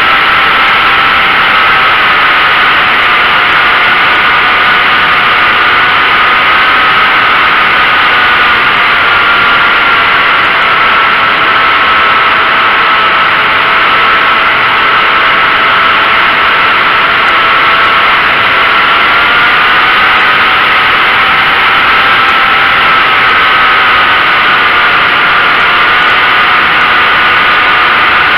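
Radio-controlled model airplane's motor and propeller heard from on board: a steady whine over loud wind rush, dipping slightly in pitch through the middle and rising again about two-thirds of the way in as the throttle changes.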